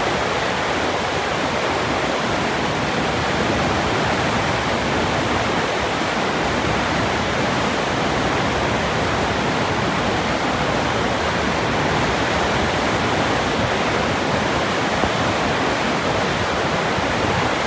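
Steady rush of churning white water in a cruise ship's wake.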